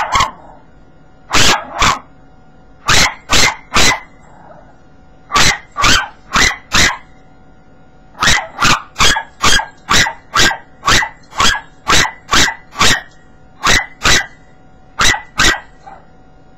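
Yorkshire terrier barking in quick runs of short barks, about two to three a second, with pauses of a second or so between runs; the barking stops near the end.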